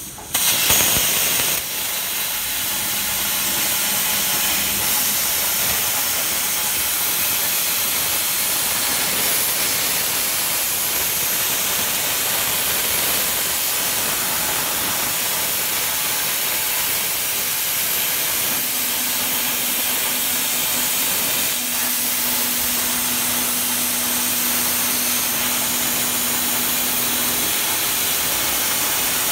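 CNC plasma table torch firing and cutting metal plate: the arc starts with a louder burst as it pierces about half a second in, then settles into a steady hiss. A faint low hum joins for several seconds in the second half.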